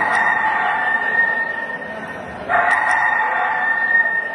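A rooster crowing twice. Each crow is about two seconds long on a steady high pitch, and the two come back to back at even spacing.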